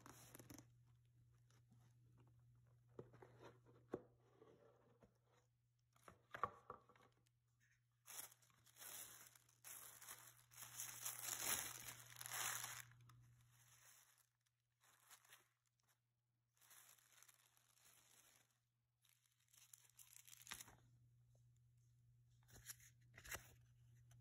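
Packing paper being handled: rustling and crinkling in several bursts, the longest and loudest a third of the way in, as the tissue paper in the knife box is pulled back. A faint low steady hum sits underneath and drops out for a while in the middle.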